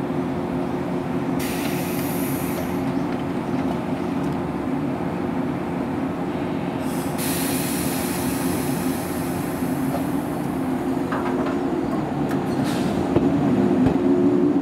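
JR West 115-series electric train standing at a platform with a steady hum from its equipment, broken by a couple of hisses of air. Near the end the sound grows louder as the train starts to pull away.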